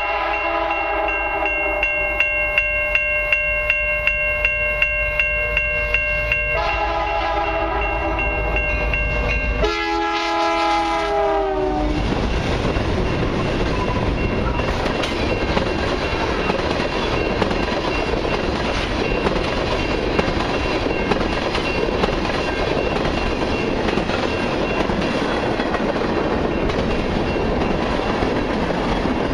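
CN freight locomotive's chime air horn sounding for the grade crossing: two long blasts, then a shorter one whose pitch drops as the lead locomotive passes, over the regular clang of the crossing bell. Then the long mixed freight train rolls by with a steady rush of wheels on rail and the clickety-clack of cars over the joints.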